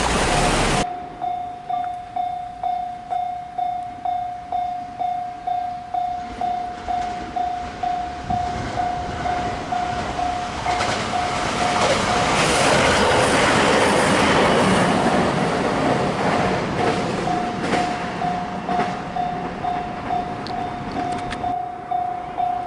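Japanese level crossing's electronic warning bell dinging steadily, about one and a half strikes a second, while a train passes over the crossing. Its rumble and wheel clatter swell to a peak around the middle and fade near the end.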